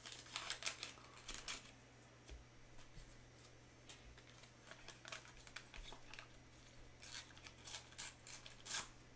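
A Topps Bundesliga sticker pack's wrapper being torn open and crinkled by gloved hands: faint, irregular crackles and rips, busiest in the first second and a half and again near the end.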